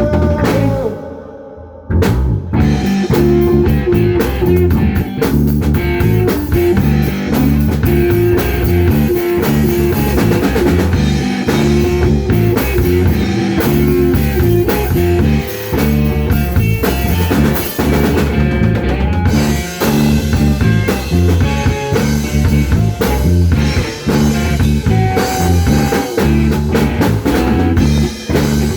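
Instrumental break of a rock song with no vocals: drum kit, guitar and bass playing a steady beat. The band drops out briefly about a second in, then comes back at full volume.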